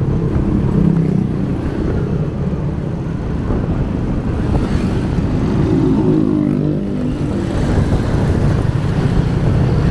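Motorcycle engine running at road speed, with steady wind rumble on the microphone; the engine note stands out more clearly a little past the middle.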